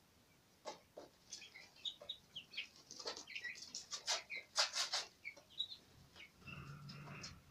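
Young Sasso crossbred chicks peeping in short, scattered chirps, mixed with sharp taps and clicks from pecking at feed and litter. The clicks bunch up about halfway through, and a low hum joins the sound near the end.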